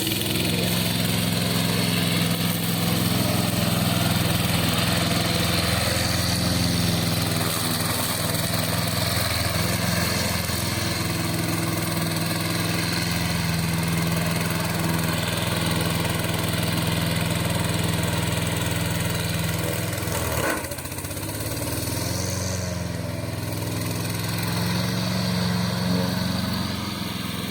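Engine of a crawler remote-control slope mower running steadily under load. About twenty seconds in there is a brief knock, and the engine note dips, then climbs back up.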